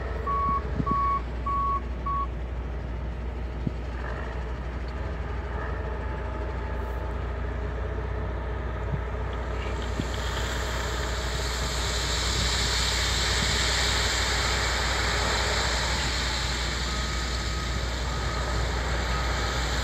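Heavy diesel earth-moving machinery running steadily, with a reversing alarm beeping about twice a second at the start and again more faintly near the end. From about ten seconds in, a hiss rises over the engine noise.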